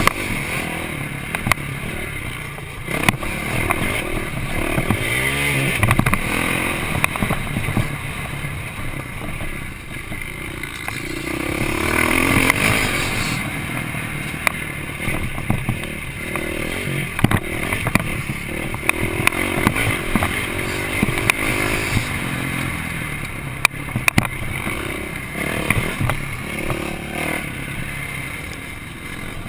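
Motocross bike engine heard from a camera mounted on the bike, revving up and easing off repeatedly as it is ridden hard over rough dirt. Sharp knocks and clatter come through the bike as it hits the bumps.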